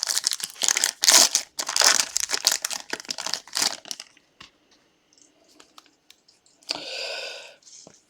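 Plastic foil wrapper of a Topps Finest baseball card pack being torn open and crinkled, a quick run of crackles for about four seconds. A short soft rustle follows near the end.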